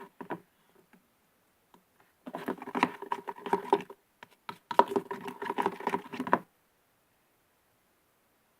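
Freshly activated glue-and-borax slime being kneaded and squeezed by hand, giving wet, rapid sticky clicking in two bursts, then stopping about six and a half seconds in.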